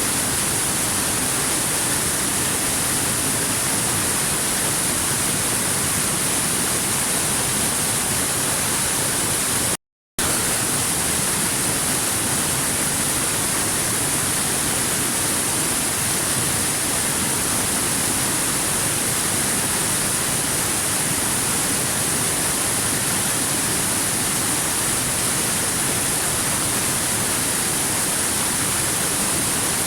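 Waterfall rushing steadily: an even, unbroken hiss of falling water, cut by a brief dropout to silence about ten seconds in.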